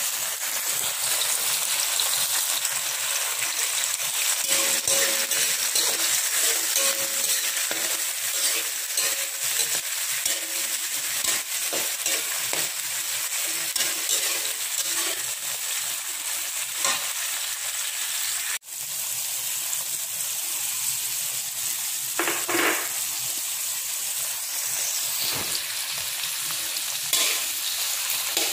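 Oil sizzling in a wok as sliced red onion, garlic and tomatoes fry, with a metal spatula scraping and clicking against the pan as it stirs. The sizzle breaks off for an instant about two-thirds of the way through.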